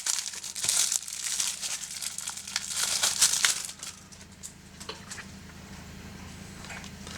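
Plastic wrapping crinkling and crackling as it is handled and pulled off a Blu-ray case, for about three and a half seconds. After that come a few faint clicks of handling.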